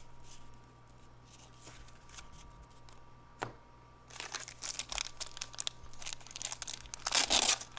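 A 1992 Fleer jumbo baseball card pack having its silver-lined wrapper crinkled and torn open, a rapid run of crackles starting about four seconds in. Before that there is only faint card handling and a single click.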